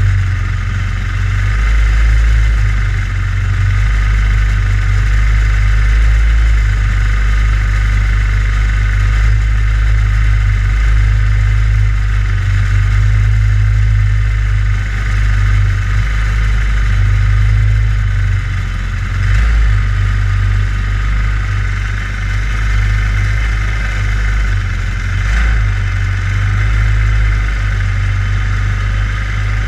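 Racing kart's small engine idling steadily, heard close from a camera mounted on the kart, with the level dipping and rising slightly now and then.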